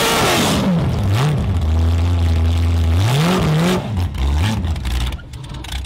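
Off-road racing buggy engine revving up and down in quick blips. It holds a steady low note for about a second and a half, then rises again a couple more times before dropping away near the end.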